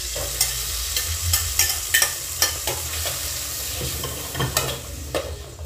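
Chopped onion, tomato and peppers sizzling as they are sautéed in a hot metal pot, with a metal spoon scraping and clinking against the pot as they are stirred.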